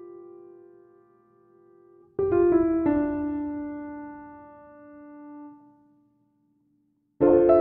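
Slow solo piano music: a few notes struck together ring and fade away, then after a short silence another phrase begins near the end.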